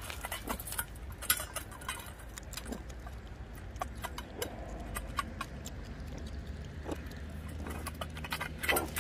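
Meerkats eating loaches from a stainless steel bowl: a run of small irregular clicks and scrapes from claws and snouts against the metal bowl and the gravel.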